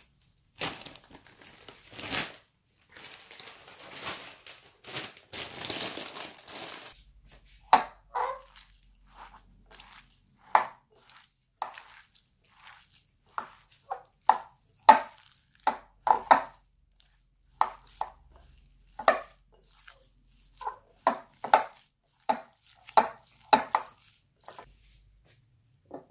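Plastic bag crinkling and rustling as herbs are shaken out of it into the bowl, then, about seven seconds in, a hand kneading minced pork in a bowl, with short wet squelches at an irregular one or two a second.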